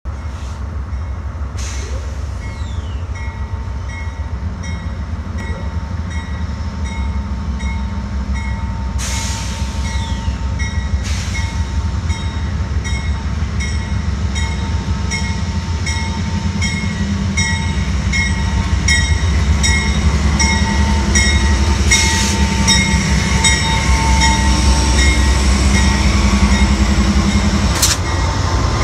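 Amtrak GE P42DC diesel locomotive pulling into a station: a low diesel rumble that grows steadily louder as it draws near, with the locomotive bell ringing in quick, even strokes. A few sharp knocks stand out along the way.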